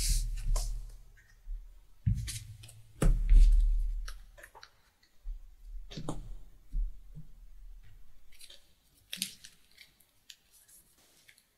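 Playing cards being handled on a playmat: scattered short clicks and rustles as cards are slid, picked up and set down, with a few soft thumps on the table.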